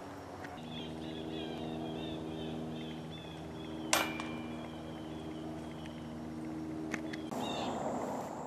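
A putted disc golf disc strikes the metal chains of a basket about four seconds in, a single sharp clank with a brief ringing after it. Under it run a steady low hum and, in the first few seconds, a run of high repeated chirps.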